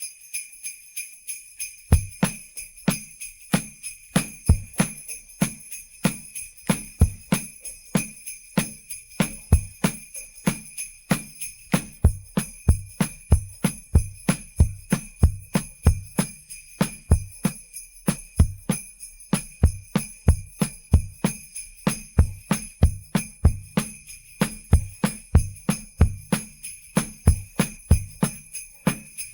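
Sleigh bells jingling continuously over a steady drum beat, the isolated percussion track of a pop song. The drum hits come in regularly from about two seconds in, low thumps under sharp strokes, with the bells ringing unbroken above them.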